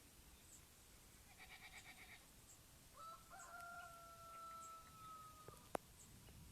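A faint, distant rooster crowing once, ending on a long held note, over near-quiet surroundings. A brief rapid pulsing call comes just before the crow, and a single sharp click comes near the end.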